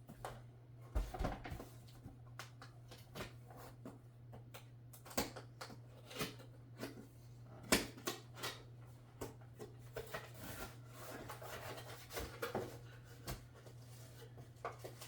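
Scattered clicks, taps and rustles of hands handling a PC power supply's cables and small build parts, over a steady low hum.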